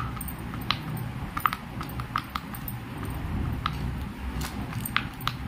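Silicone push-pop fidget toy's bubbles being pressed, giving short, sharp pops at an irregular pace, about a dozen in all, over a low steady rumble.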